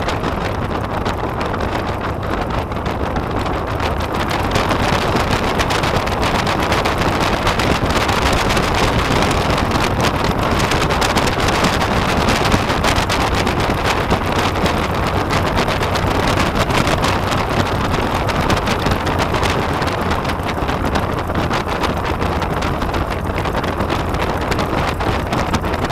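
Aeronca Chief's Continental A-65 flat-four engine running at low taxi power, with the propeller blast buffeting an exterior microphone. The engine gets a little louder about four seconds in.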